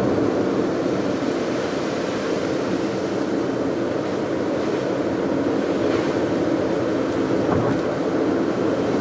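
Steady noise of a car driving on a wet road: tyre hiss and engine hum at an even level, with no sharp events.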